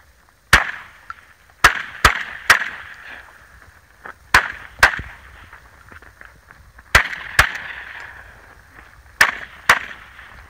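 Ten gunshots fired in a 3-gun competition stage, mostly in quick pairs about half a second apart, each followed by a rolling echo.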